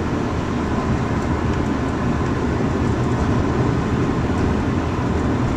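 Steady road noise inside a moving car's cabin: engine and tyres on pavement, an even low rumble with no breaks.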